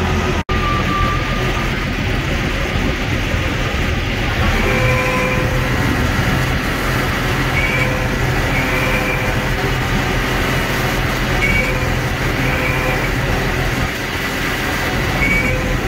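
Heavy truck diesel engine running steadily, with faint short high whining tones coming and going over it. The sound drops out for a split second about half a second in.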